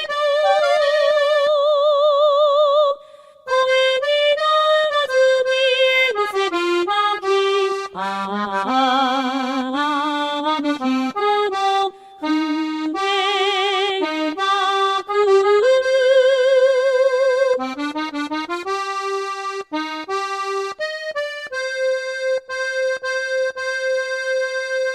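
Sampled accordion playing the closing instrumental melody of a Japanese kayō song, the notes wavering in pitch, ending on a long held chord from about four seconds before the end.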